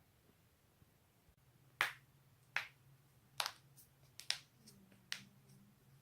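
Neck joints cracking: five sharp pops about a second apart, starting about two seconds in, with a few smaller clicks between them.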